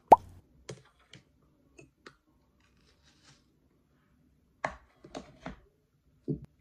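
A metal fork clinks against a ceramic bowl while a plastic food container is handled: scattered taps and clicks. The loudest is a sharp clink with a short ringing tone just at the start, and a quick run of clicks comes about five seconds in.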